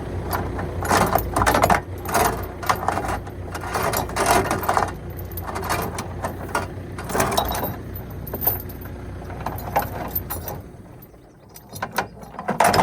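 Diesel excavator engine running under load with repeated metal clanks and rattles as a chained old vehicle is pulled. The engine rumble drops away about ten seconds in, leaving a few last clanks.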